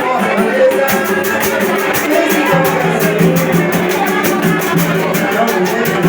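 Latin-style band music with percussion keeping a fast, steady beat over a bass line.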